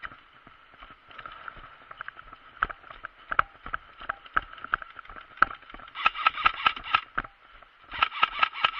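Airsoft guns firing: scattered single shots, then two rapid full-auto bursts of about ten shots a second in the second half.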